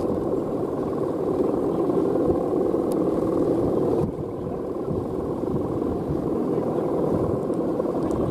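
The rattan bow hummer (guangan) on a Balinese bebean kite droning steadily in strong wind, easing a little about four seconds in.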